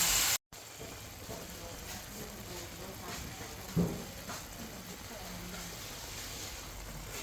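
Prahok (fermented fish paste) and minced pork sizzling in hot oil as they are stir-fried down. A louder hiss cuts off about half a second in, quieter sizzling with faint scrapes follows, and there is a single knock of the spatula against the pan about four seconds in.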